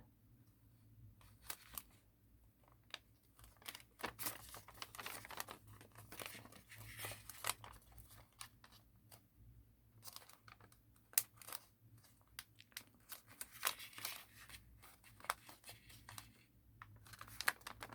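A sheet of origami paper being folded and creased by hand to mark guide lines: crinkling and rustling with many short, sharp crackles as the folds are pressed flat.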